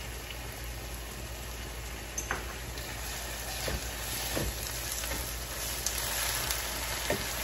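Onions and ginger-garlic paste sizzling in hot oil in a pan over high heat, with a few light knocks against the pan.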